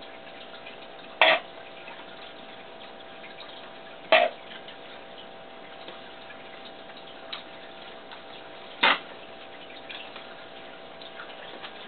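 Three sharp clicks, a few seconds apart, with a few fainter ticks between them, over a faint steady hum.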